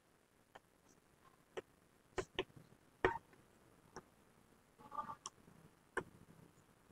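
Chalk tapping and scraping on a chalkboard as numbers are written: faint, irregular sharp taps, about nine in all, with a short scratchy stroke about five seconds in.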